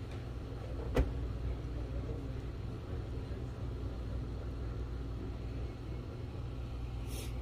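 Steady low rumble of background room noise, with one sharp click about a second in and a short hiss near the end.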